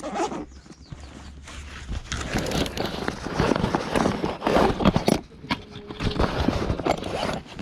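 Cordless 1/2-inch drive right-angle impact wrench hammering in two runs of rapid blows, with a short pause about five seconds in.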